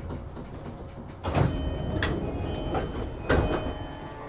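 Sliding passenger doors of a JR East E233-5000 series electric train working at a station stop, with two heavy thuds about two seconds apart.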